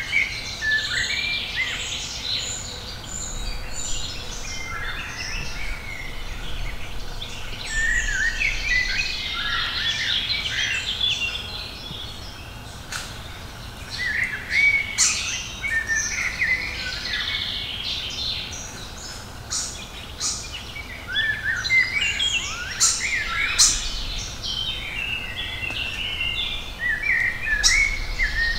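Woodland birdsong: several songbirds singing and chirping at once in overlapping phrases, with a few sharp ticks in the second half.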